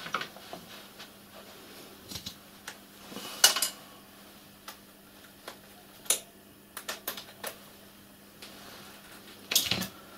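Scattered metallic clicks, taps and knocks of hands, tools and small brass fixings being worked on a model steam locomotive's boiler cladding bands. The loudest cluster comes about three and a half seconds in, with another near the end.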